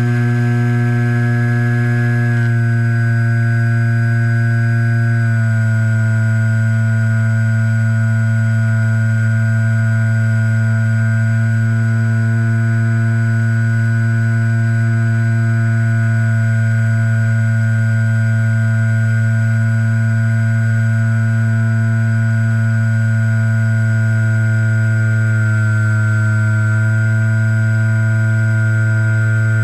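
HobbyZone Super Cub RC plane's electric motor and propeller running in flight, close to an onboard camera: a loud, steady drone whose pitch steps down slightly twice in the first five seconds and dips briefly near the end.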